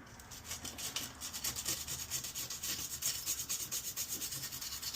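Rapid back-and-forth scrubbing on a burnt stove control circuit board as its surface is cleaned, in quick, even strokes several times a second with a hissy, scratchy sound.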